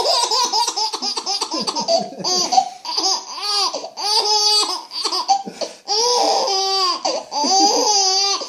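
A baby laughing hysterically in high-pitched bouts of rapid laugh pulses, with brief breaks for breath between them, set off by a sneeze.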